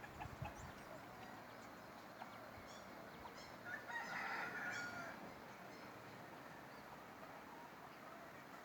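A bird calling once for about a second and a half, about four seconds in, over faint background noise, with a few short high chirps just before it.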